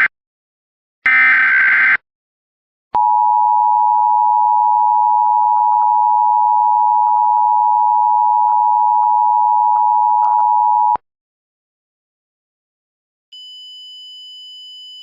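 Emergency Alert System broadcast tones. A one-second burst of the digital header data is followed by about eight seconds of the steady two-tone attention signal, which cuts off abruptly. A faint, high steady tone begins near the end.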